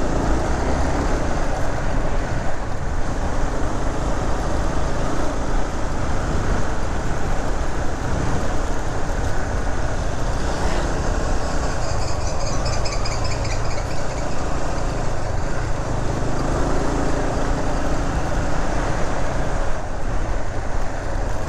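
Steady engine and road noise of a moving vehicle, heard from on board, holding an even level throughout.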